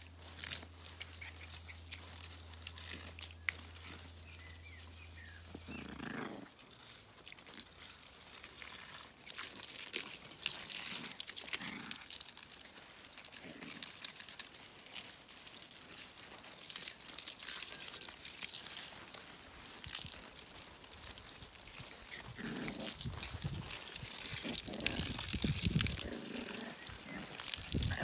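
Terrier puppy grunting and growling as it tugs and chews on a garden hose.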